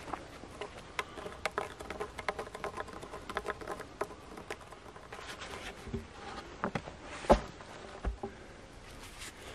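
Light scraping and tapping of hands and tools on wooden logs: a run of small clicks in the first few seconds, then scattered knocks, the sharpest about seven seconds in.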